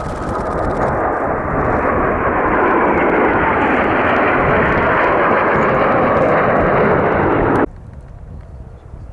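Blue Impulse Kawasaki T-4 jet passing, its engine noise building over the first few seconds to a loud, steady rush, then cutting off suddenly about a second and a half before the end.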